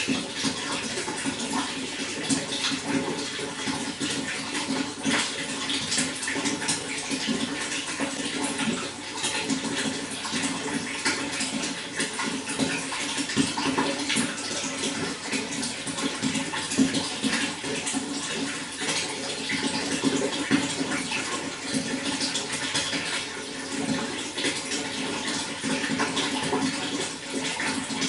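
Running water splashing and gurgling steadily, with constant small flickers of spray over a low burble.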